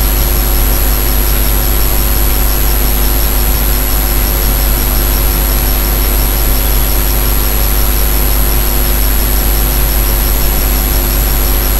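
Steady background hum and hiss, unchanging throughout, with no distinct events.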